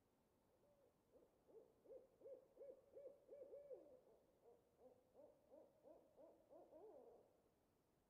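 An owl hooting: a long, rapid series of short hoots, about three a second, lasting some six seconds before stopping.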